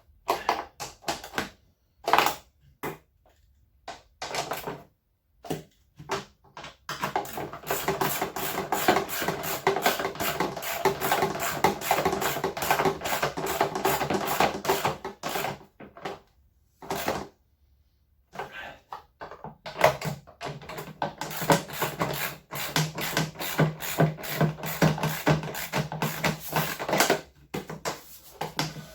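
Screws being driven one after another into the washing machine's plastic housing with a screwdriver: bursts of fast ratcheting clicks separated by short pauses.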